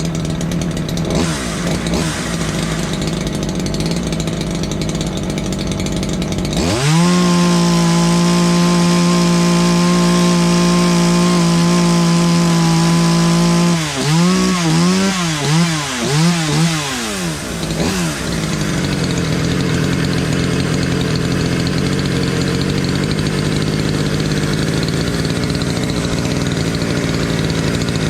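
Ported Poulan Predator chainsaw with a custom welded exhaust running at a lower speed, then pinned at wide open throttle for about seven seconds at a high, steady pitch. It is then blipped about four times and dropped back to a lower steady speed. This is a check of the carburetor's high-speed tuning against a target of about 10,500 RPM at full throttle.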